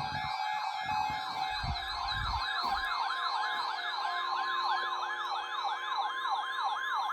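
Electronic siren in a rapid yelp, its pitch sweeping up about three times a second without a break. A steady high tone joins it about halfway through.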